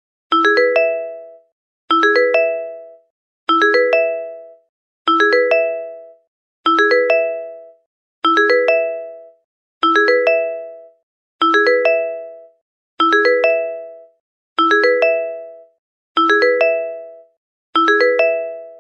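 BlackBerry SMS message notification tone repeating on a loop, twelve times, about every 1.6 seconds. Each time it plays a quick run of bright chime notes ending on a brief held note, then dies away to silence.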